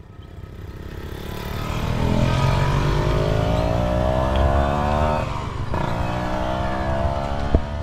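A motor vehicle's engine accelerating, its pitch rising steadily, dropping at a gear change about five seconds in, then rising again. A sharp click near the end.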